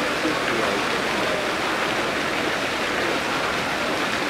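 Water from an artificial waterfall falling over rocks in a zoo enclosure: a steady, unbroken rush of water.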